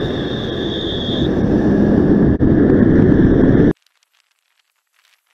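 Wind rush and traffic noise on a moving rider's camera microphone at speed, with a high steady whine through the first second. It cuts off abruptly about three and a half seconds in, leaving near silence with a few faint clicks.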